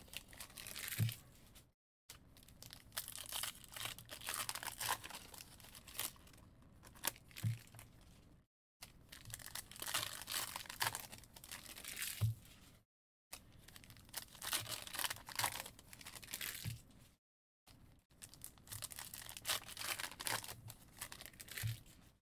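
Foil trading-card pack wrappers being torn open and crinkled, with cards handled between them. A soft low thump comes every four or five seconds, and the sound cuts out to silence a few times.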